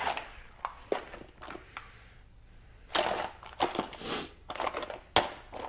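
Metal hand tools and sockets clinking and clattering as they are handled, a run of quick rattles and knocks, with one sharp knock near the end.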